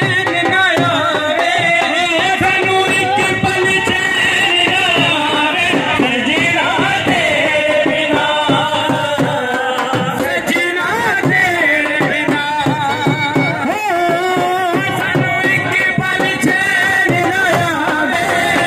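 Men singing a folk song through microphones over a dhol drum beat.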